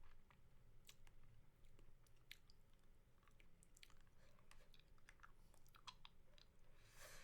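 Faint close-miked mouth sounds of a lollipop being sucked and licked: scattered wet clicks and smacks, with a longer slurp near the end.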